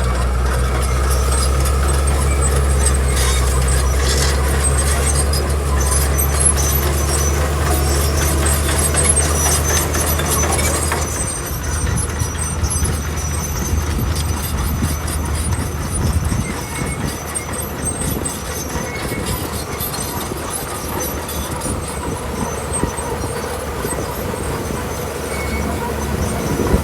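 Komatsu crawler bulldozer's diesel engine running with a steady low drone, over metallic clanking and rattling from its tracks; the drone fades about eleven seconds in, leaving mostly the clanking.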